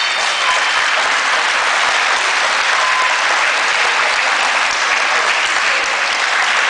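Audience applauding, a dense steady clapping throughout.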